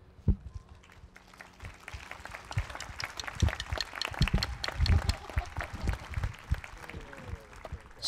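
Audience applauding: scattered claps that build up about two seconds in and thin out near the end, with a few low thumps among them.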